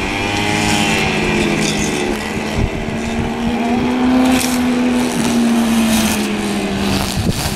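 Sport motorcycle engine running at high revs, its note rising and falling, over a steady, slightly wavering engine drone.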